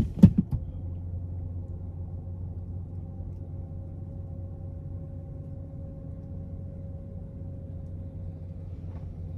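Steady low hum of an idling car heard from inside the cabin, with a faint higher tone held above it. A short knock sounds right at the start.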